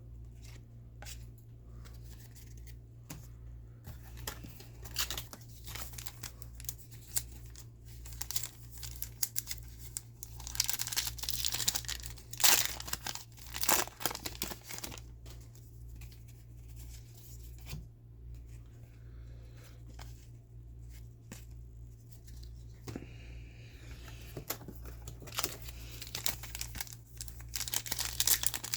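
Football trading card pack wrappers being torn open and crinkled, with cards handled, in irregular bursts that are busiest about a third of the way in and again near the end. A steady low hum runs underneath.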